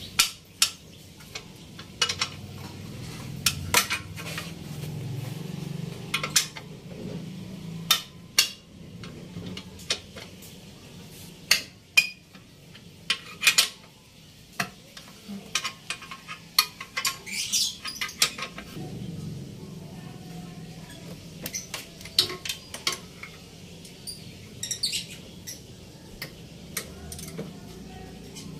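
A wrench and other hand tools clink and tap irregularly against the metal of a scooter's exhaust mounting bolts as they are worked on, over a steady low hum.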